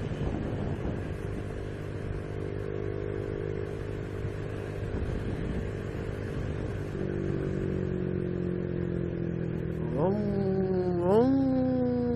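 Honda Biz 125's single-cylinder four-stroke engine running on the road under wind noise, its revs climbing sharply twice near the end, sagging between the two climbs.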